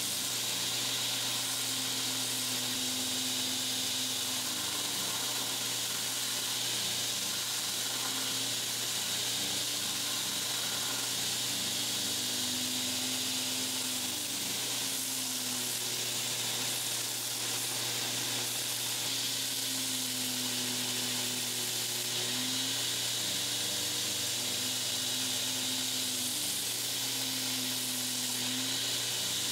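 2x72 belt grinder running steadily, its abrasive belt hissing against the wooden handle scales of a knife pressed to it as the handle is ground down, over a low motor hum that wavers slightly in pitch.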